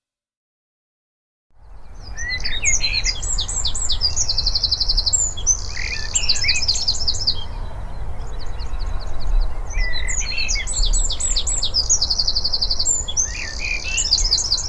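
Eurasian wren singing two long, loud songs of rapid high notes and buzzy trills, starting about two seconds in, over a low background rumble.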